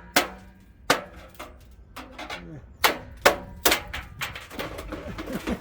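Hammer blows on a stuck part of a front-load washer being torn down, about five sharp strikes at uneven intervals with lighter knocks between.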